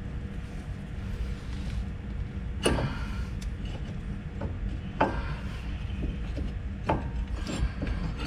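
Brake caliper being worked off the disc rotor: a handful of short metallic knocks and clinks, the first with a brief ring, over a steady low hum.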